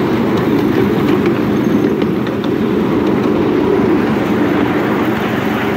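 Miniature ride-on train running along its track: a steady rumble of the wheels on the rails, with a few light clicks.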